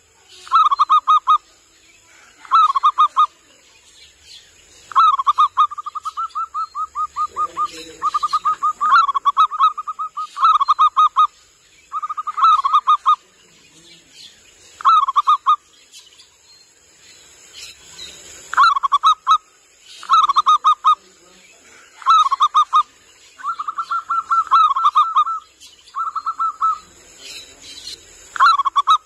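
Zebra dove (perkutut) cooing: short runs of quick stuttering coos repeated every second or two, some runs drawn out to about two seconds. It is the call used as a lure for wild zebra doves.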